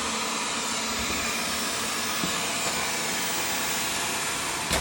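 Wyze LIDAR robot vacuum running, a steady even whir and hiss of its suction motor and brushes as it cleans.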